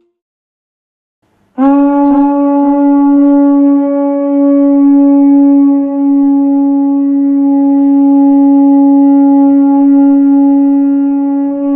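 One long, loud, steady note blown on a horn-type wind instrument, starting suddenly about a second and a half in with a slight upward scoop, then held at a single pitch.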